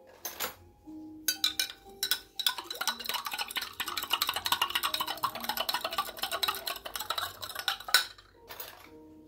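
Sugar being stirred into water in a drinking glass, the utensil clinking rapidly against the glass for several seconds after a few separate clinks.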